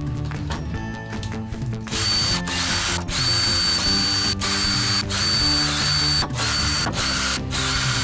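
Makita cordless drill/driver unscrewing the screws of a hoverboard's plastic housing. It starts about two seconds in and runs in a series of short spins with brief stops between them, with a high whine.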